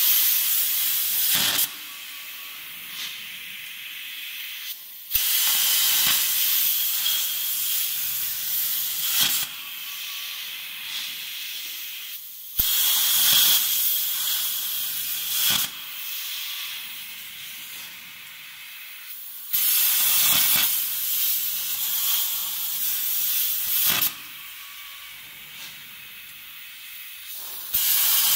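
CNC plasma cutting torch cutting thin sheet metal: a loud high hiss while the arc burns, cutting off suddenly and restarting, sometimes with a sharp click, about every seven seconds as each piece is cut. A softer hiss goes on between cuts.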